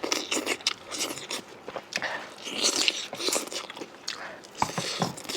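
Close-miked eating: irregular crunchy bites and wet chewing, with sharp mouth clicks.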